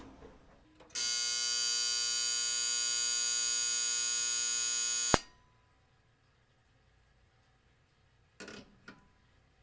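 Old clothes dryer's end-of-cycle buzzer giving one steady buzz of about four seconds, which cuts off with a click. Then near silence, with two faint knocks near the end.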